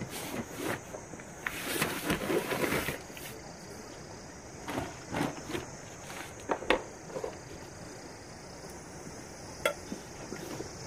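Camping gear being handled: a foam mat and fabric rustling, then a few sharp clicks and knocks as things are set down and picked up. A steady high insect trill runs underneath.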